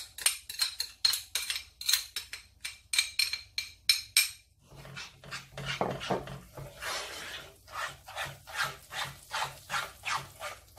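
Metal spoon stirring in a metal pot: for about four seconds quick clinks and scrapes that ring against the pot. After that, a denser run of softer scraping strokes, a few per second, as the thick flour-and-oil mixture is worked.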